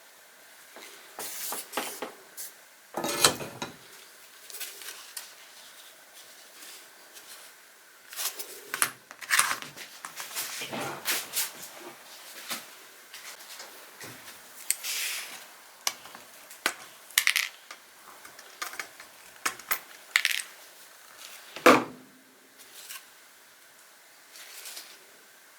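Small metal parts and hand tools being handled, clinking and knocking on a hard surface in irregular clicks, with a heavier knock about three seconds in and another later on.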